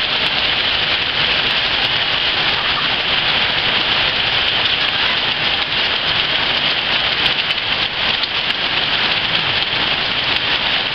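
Heavy rain falling steadily: a loud, even hiss of downpour with no break.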